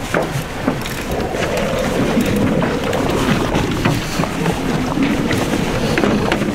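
Twin outboard engines of a fishing boat running steadily.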